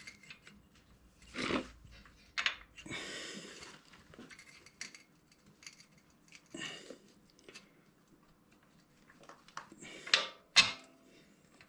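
Irregular metallic clinks and knocks of hand tools and suspension link parts being handled and fitted back together, with about a second of scraping or rustling around three seconds in.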